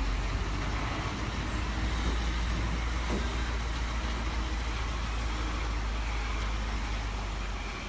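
Logging truck's engine running, a steady deep rumble.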